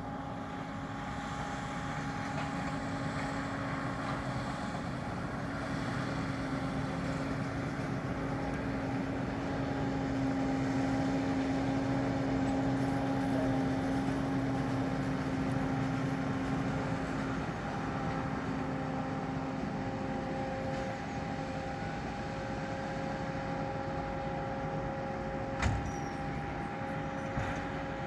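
New Holland T7 245 tractor running with a round baler in tow: a steady drone with a few held tones, growing louder toward the middle and easing off a little after. A single sharp knock near the end.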